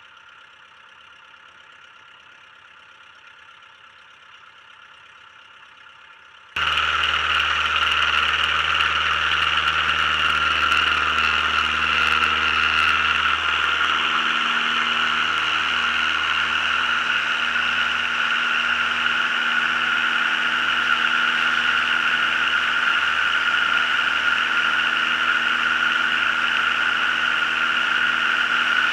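The Lycoming O-290 four-cylinder engine and metal McCauley propeller of a homebuilt light aircraft, heard from outside under the wing. It runs low and steady while taxiing, then about six and a half seconds in jumps suddenly to a much louder, steady full-power run through the takeoff roll and climb-out.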